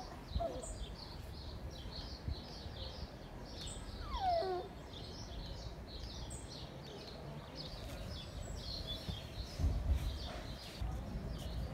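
Small birds chirping busily and continuously, with one high squeal that falls in pitch about four seconds in. A low rumble, like wind on the microphone, swells near the end.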